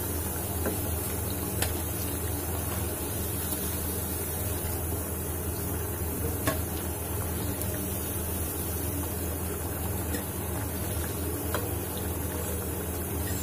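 Hot oil sizzling steadily in a pan as cutlets deep-fry, over a low steady hum. A few light clicks of a metal slotted spatula against the pan come about two, six and eleven seconds in.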